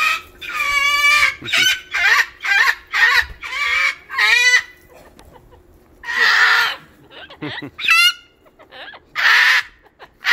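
Cockatoo screaming: about ten loud, harsh screeches and squawks, quick-fire in the first few seconds and more spaced out after.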